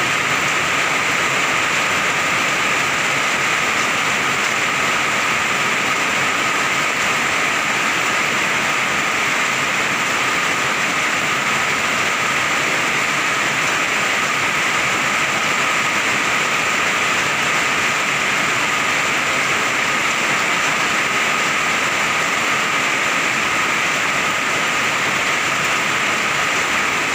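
Heavy rain pouring down steadily, a dense unbroken hiss of water falling on roofs and pavement.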